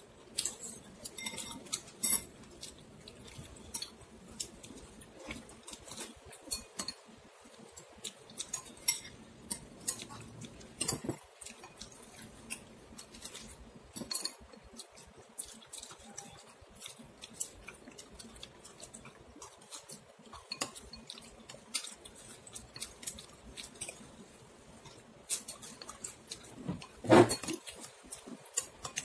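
A ceramic soup spoon and chopsticks clinking and scraping against a soup bowl in short, irregular taps, with a louder knock near the end.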